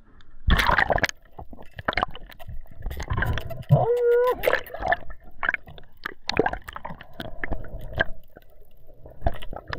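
Water sounds picked up by an action camera at and below the surface: splashing and gurgling with many sharp clicks and crackles, a loud splash under a second in, and a short muffled tone about four seconds in.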